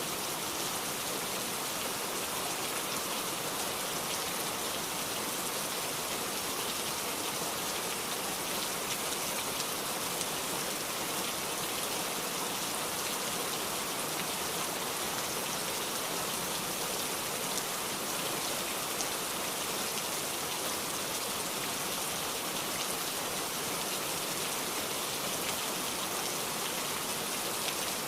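Heavy rain falling steadily, an even hiss with many fine drop ticks and no change in strength.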